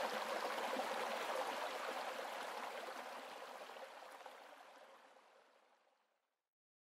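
Rushing creek water, a steady noise that fades out over a few seconds into silence.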